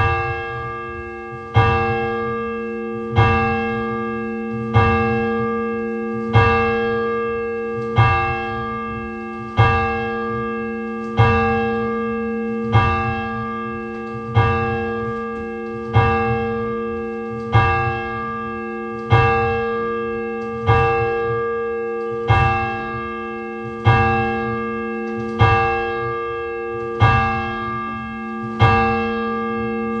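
A single Orthodox church bell tolled steadily, the same note struck about once every second and a half, each stroke ringing on into the next. The tolling stops near the end.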